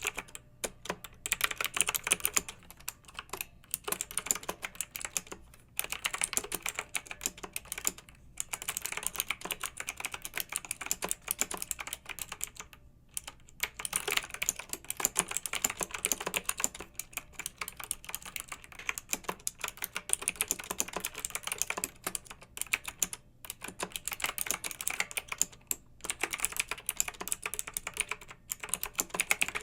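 Clicky mechanical keyboard being typed on in fast, steady runs of keystrokes, with short pauses every few seconds.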